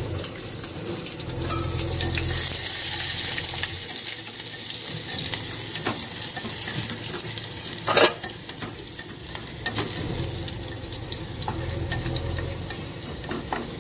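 Chopped onion, curry leaves and green chillies sizzling in hot oil in a pot as the tempering for dal rasam, stirred with a wooden spatula that scrapes and knocks against the pot. One sharp knock about eight seconds in is the loudest sound.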